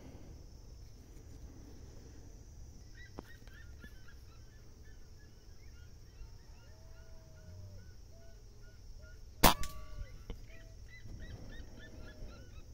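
Beeman air rifle firing a slug once, a sharp crack about nine and a half seconds in, with a brief ringing after it. Birds chirp in short, repeated calls for several seconds before and after the shot.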